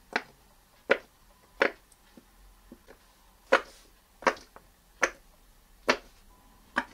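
Bubbles of a silicone pop-it fidget toy pressed in one at a time by fingers, each giving a short sharp pop, about eight loud pops at an even pace of just under one a second, with a few fainter ones between.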